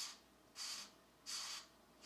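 Colored pencil scratching across paper in steady back-and-forth coloring strokes, three strokes in two seconds.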